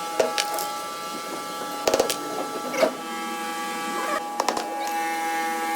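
A lathe running with a steady, multi-pitched motor hum, with scattered sharp metallic clicks and taps, including quick clusters about two seconds and four and a half seconds in.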